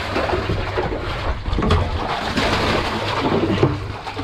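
Water splashing and sloshing around a small fishing boat at sea, a steady rushing noise with a low hum underneath.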